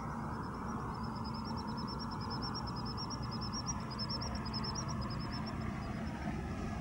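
A small bird sings a long, rapid trill of short high chirps, about eight to ten a second. The trill starts about a second in and fades out near the end. Under it runs a steady low background rumble.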